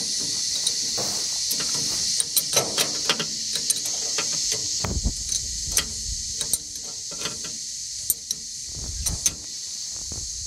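A steady high-pitched insect chorus, with scattered sharp metallic clicks of a spanner working the hydraulic hose fitting on a crawler loader's tank.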